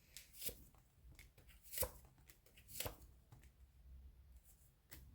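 Tarot cards being handled and laid down on a table: a few faint, sharp taps and clicks, spaced about a second apart.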